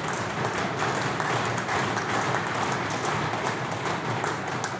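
Applause from a roomful of legislators, many hands clapping at a steady level.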